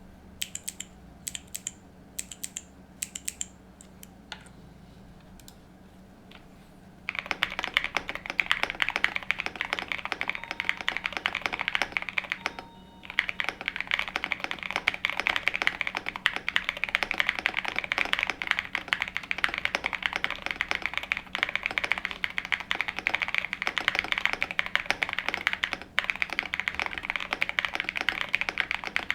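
Typing on a QK100 gasket-mount mechanical keyboard with an FR4 plate, lubed Epsilon switches and JC Studio Greek Blue keycaps. A few separate keystrokes come first, then fast continuous typing from about seven seconds in, with a brief pause a little under halfway.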